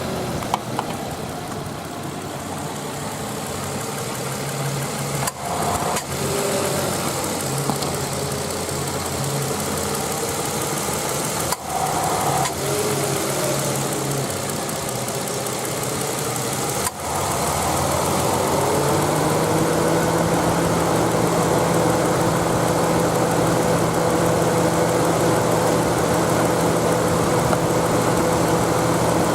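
Nissan Elgrand E51 idling with the air-conditioning on, sharp clicks and dips in the sound about every six seconds as the compressor switch cuts in and out, then a steady hum with a faint whine from about two-thirds in. The rapid on-off cycling is the fault the owner is showing, its cause not found.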